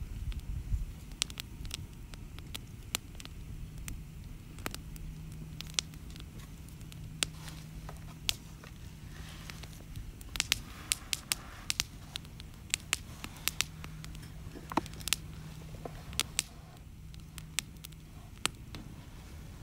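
Wood campfire burning, crackling with irregular sharp pops that come thickest and loudest in a run about halfway through, with a soft hiss under them for a moment.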